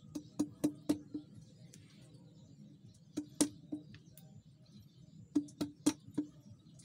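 Machete blade striking the rim of a green bamboo tube in short trimming strokes: three quick runs of sharp knocks, each ringing briefly with the same hollow pitch of the tube.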